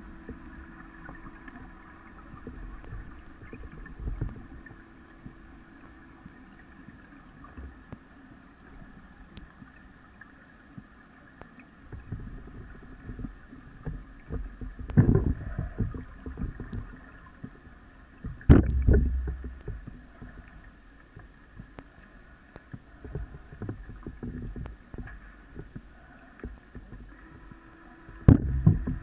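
Underwater recording of scuba divers' exhaled breath bubbling out of their regulators in loud, rumbling bursts over a steady low hum. The biggest bursts come about 15 and 19 seconds in, and again near the end.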